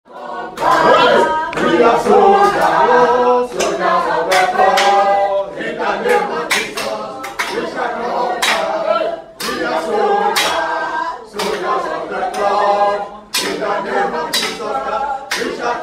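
A group of voices singing together without instruments, with regular hand claps keeping time.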